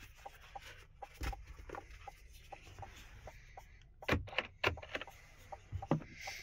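Faint, quick, even ticking of a Chevy Silverado's hazard-light flasher in the cab, with several louder clicks and knocks about four to six seconds in.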